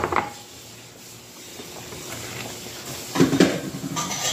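A wooden spoon stirring chicken pieces through a thick tomato-cream sauce in a steel pot, rubbing and scraping against the pot, loudest a little after three seconds in. A brief knock at the very start.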